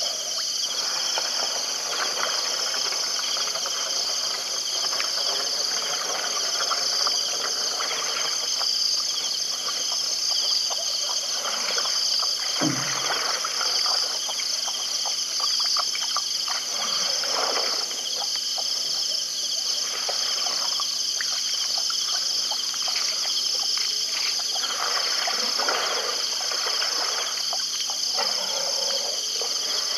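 Steady night chorus of insects with a high pulsing trill, over irregular wet lapping and splashing from a leopard drinking at the water's edge. A short low falling sound comes about halfway through.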